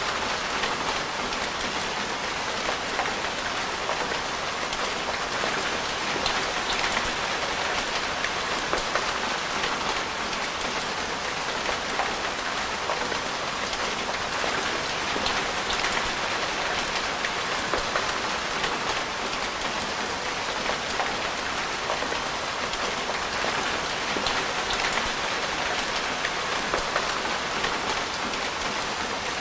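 Steady rain falling: an even hiss with scattered sharp ticks of single drops striking.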